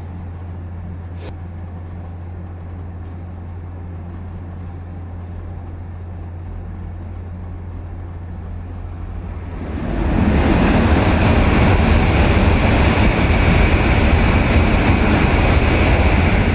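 A low steady hum, then about ten seconds in a sudden loud rush as an E2 series Shinkansen passes straight through the station at speed without stopping. The rush lasts about six seconds and starts to fade near the end as the train leaves.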